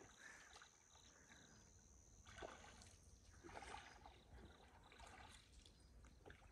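Near silence, with faint splashes and knocks at irregular intervals from a pole punting a bamboo raft through still water, over a thin steady high tone.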